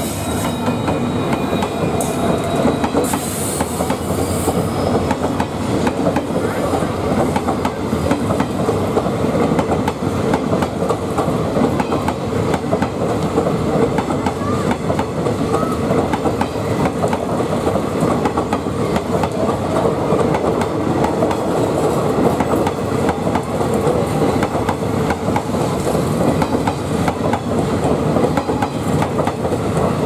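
A passenger express gathering speed close by on the next track. Its WDP4D EMD diesel locomotive passes at the start, then its coaches roll by, the wheels giving a steady clickety-clack over the rail joints.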